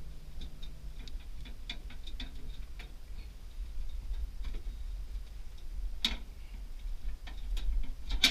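Scattered light clicks and taps from hands working in a snack vending machine as it is stocked, with two sharper knocks, one about six seconds in and one near the end, over a low steady hum.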